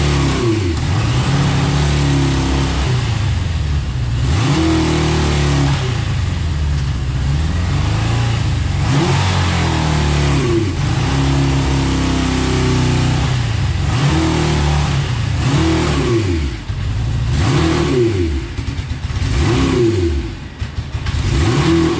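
Suzuki GS650 four-cylinder motorcycle engine being revved over and over with throttle blips, its pitch climbing and falling back each time, with quicker, shorter blips and dips toward idle in the last few seconds. The owner reports this engine bogs down above 6000 rpm at full throttle.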